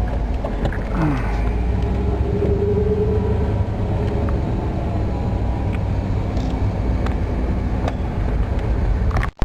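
Car driving along, a steady low engine and road drone. It cuts off suddenly near the end.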